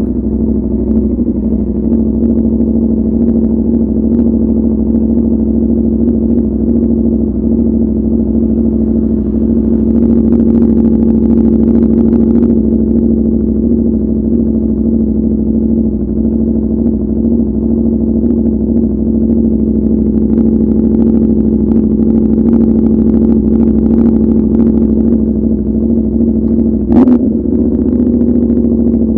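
Aprilia RSV4 RF's V4 engine through a de-catted SC Project CRT exhaust, idling at steady low revs with an even, unchanging note. About 27 seconds in the note briefly dips and flicks up before settling again.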